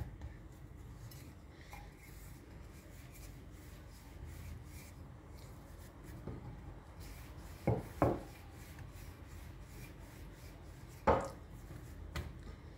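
Hands pressing and rubbing a ball of naan dough flat on a floured countertop, a soft steady rubbing. A few sharp knocks cut through it: two close together about eight seconds in and another about eleven seconds in.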